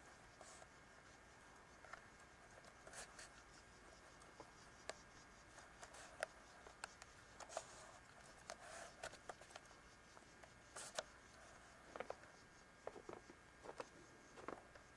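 Near silence broken by faint, scattered clicks and short scratchy rustles, more frequent in the second half, over a faint steady whine.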